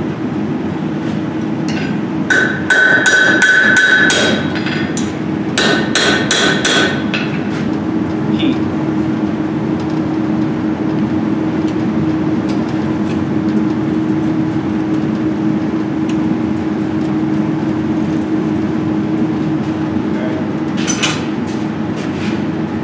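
Hand hammer striking hot steel on an anvil in two quick runs of blows a few seconds in, the anvil ringing with each blow. After that a steady low hum carries on, with a couple of sharp metal clinks near the end.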